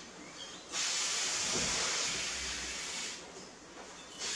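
Air hissing out of a balloon's neck as it is let down: one steady hiss of about two seconds that starts sharply about a second in and stops abruptly, with the next hiss starting at the very end.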